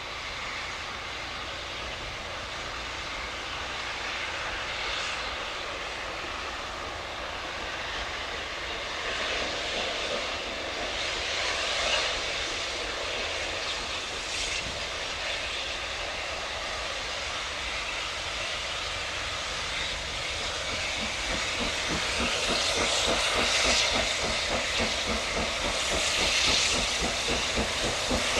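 Steam locomotive starting a train and working away under load: a continuous hiss of steam, with its exhaust chuffs growing louder and more distinct over the last several seconds as it draws nearer.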